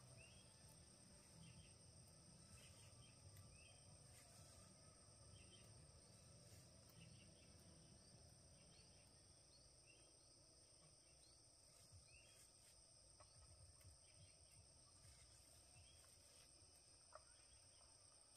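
Faint outdoor ambience: insects trilling steadily at a high pitch, with short bird chirps about once a second.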